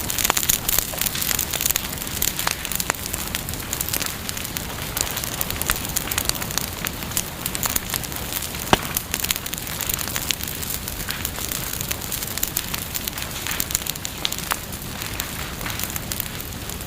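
Bonfire burning, a steady hiss of flames full of small crackles and snaps from the burning wood, with one sharper pop about nine seconds in.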